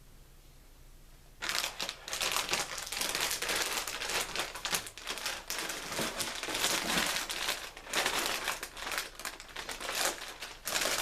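Plastic packaging crinkling and rustling as it is handled, starting about a second and a half in and going on in dense, irregular crackles.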